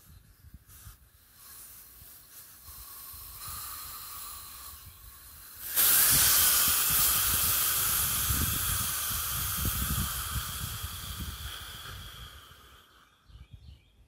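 Air hissing out of a small turf tire through its open valve stem, its core removed. A faint hiss starts about three seconds in, turns suddenly loud near six seconds, then slowly fades: the tire's pressure being let off so more sealant can be pushed in.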